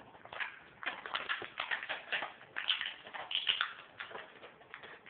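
Clear plastic packaging and a small plastic bag crinkling and clicking as they are handled, in irregular clusters of crackles and taps.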